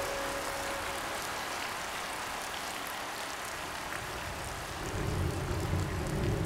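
Ocean surf breaking on a black pebble beach: a steady rush, with a low rumble swelling about five seconds in as a wave breaks.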